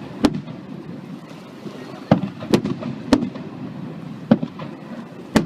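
Aerial fireworks bursting with sharp bangs, about six at irregular intervals, over a steady low background rumble.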